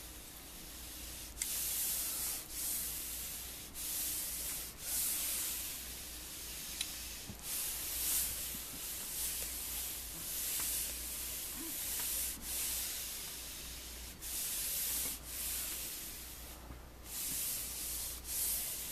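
A hot clothes iron fitted with a Teflon-coated iron shoe is glided back and forth over a shirt. It makes a dry rubbing hiss in repeated strokes, with brief breaks between them.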